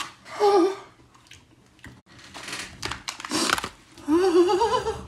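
A man groaning and breathing hard from the burn of a super-hot chili-coated nut. A short wavering groan comes about half a second in, a long breathy exhale follows through the middle, and a longer wavering moan comes near the end.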